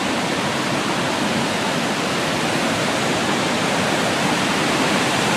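Steady rush of a waterfall's falling water, growing slightly louder.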